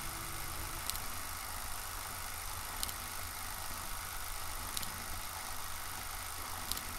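Film projector running, a steady mechanical whirr with a faint click about every two seconds.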